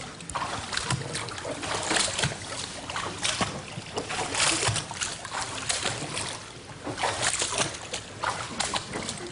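Feet treading water in a Kneipp water-treading basin: irregular splashing and sloshing as the legs lift out and plunge back in, roughly once a second.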